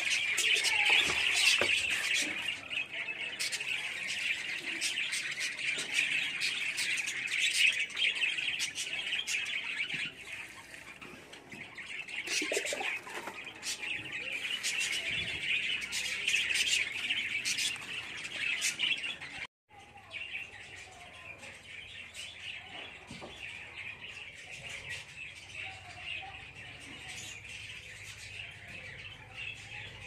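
A flock of pet lovebirds chattering in a constant stream of shrill chirps and squawks, louder through the first ten seconds and softer after that, with a brief dropout about two-thirds of the way through.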